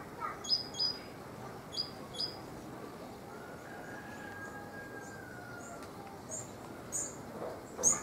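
Small songbirds chirping: two pairs of short, sharp, high chirps in the first couple of seconds, then a run of thinner, higher chirps toward the end, with a faint, long, slightly falling whistle in between.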